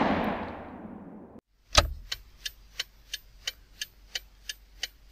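Intro sound effects: a noisy whoosh fading away over the first second or so, then a run of short, evenly spaced ticks, about three a second.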